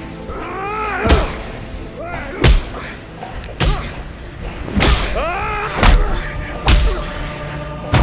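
A series of about six heavy punch and hit impact sound effects, unevenly spaced. Most are led in by a short swooping tone. They sit over a steady background of music.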